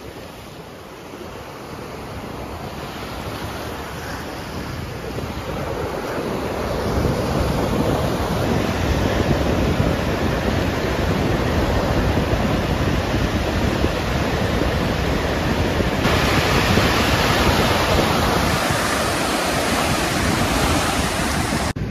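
Ocean surf washing onto a beach, with wind buffeting the microphone: a steady rush of noise that swells over the first several seconds and then holds.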